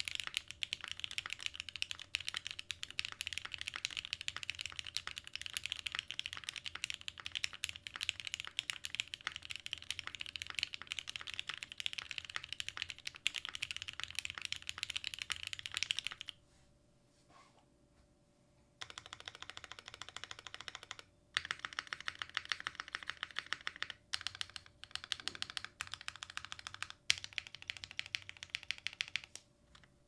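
Typing on a gasket-mount Matrix 8XV 3.0 mechanical keyboard with lubed Gateron Black Ink V2 linear switches on its stock aluminium plate, no dampening, and GMK Iceberg keycaps. A steady run of keystrokes stops for about two seconds just past the middle, then comes back in shorter bursts with brief gaps.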